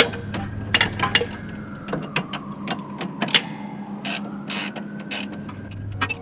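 A 17 mm ratchet wrench clicking in uneven strokes as bolts are tightened during reassembly of the suspension, with occasional scrapes and knocks of metal tools.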